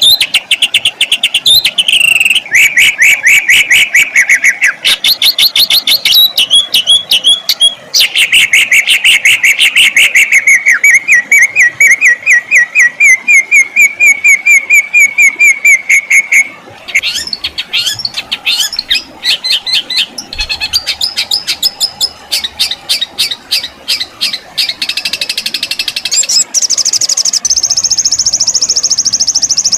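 Songbirds singing loudly in a string of changing phrases: fast repeated sharp notes and rolling trills. A long rapid trill runs through the middle, and the song ends in high chattering and a high steady trill.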